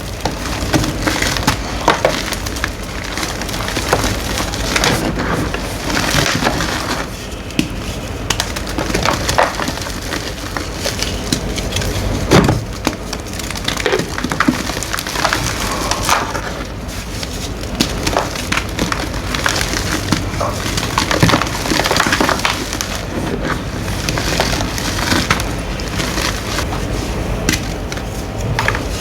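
Blocks of green-dyed gym chalk being crushed, with a dense, continuous run of crumbling and crunching crackles.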